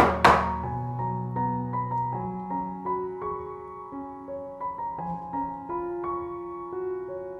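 Soft background piano music, sparse notes one after another, with one sharp tap just after it begins.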